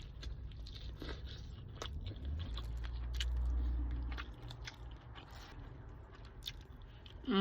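A person biting and chewing food, with small crunchy clicks, over a low steady rumble that swells for a couple of seconds in the middle.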